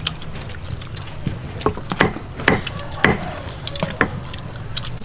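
Meat cleaver chopping braised pork on a thick round wooden chopping board: several sharp knocks at uneven intervals.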